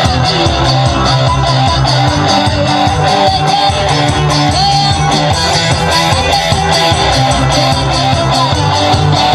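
Kecimol, Sasak street-band music, played loud through a sound system: plucked guitar over a steady beat and bass line.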